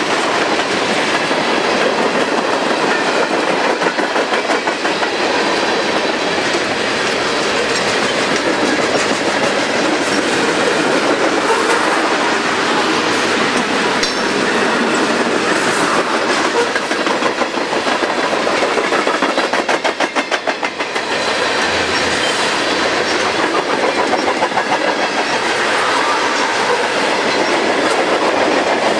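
Freight train of tank cars and covered hoppers rolling past, the steel wheels clicking and clattering rhythmically on the rails.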